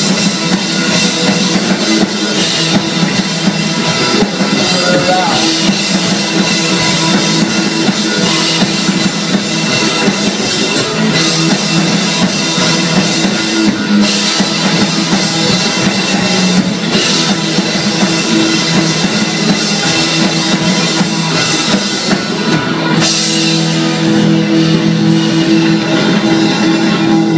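Live rock band playing a loud instrumental passage on electric guitars, bass guitar and drum kit.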